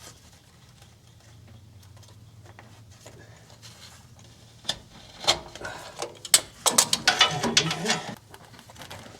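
Hand tools clicking and clattering in a quick irregular run that starts about halfway through and is densest near the end, with a faint low hum before it.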